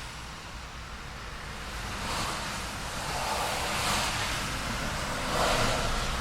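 Road traffic with a steady low rumble. Passing cars' tyre and engine noise swells and fades about three times as vehicles go by one after another.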